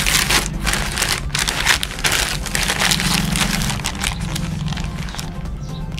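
Plastic courier mailer bag crinkling and crackling as it is turned over and picked at to open it, a dense run of small rustles and crackles.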